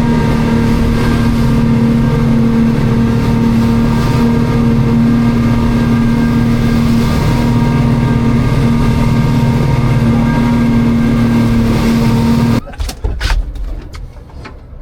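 Boat engine running steadily, a loud drone with a strong hum and a hiss over it, cutting off abruptly near the end. A few sharp knocks follow.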